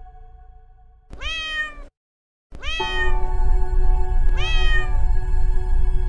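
A domestic cat meowing three times, about a second and a half apart, over soft background music with steady held tones.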